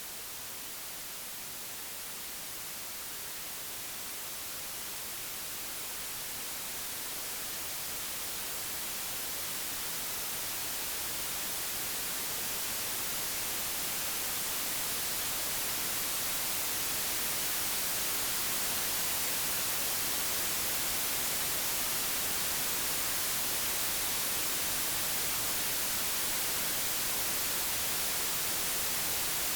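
Computer-generated white noise: an even, steady hiss with no tones or clicks, growing gradually louder over roughly the first half and then holding level.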